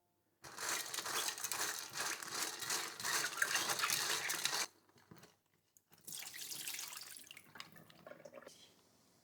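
Water running from a kitchen tap into a sink with splashing, in two spells: about four seconds, a brief pause, then a shorter, quieter run.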